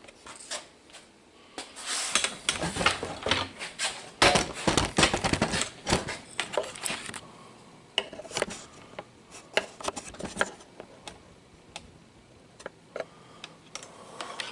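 Small metal parts and hand tools clicking, tapping and rattling during hands-on work on brake-line fittings: a busy run of clicks in the middle, then scattered single clicks.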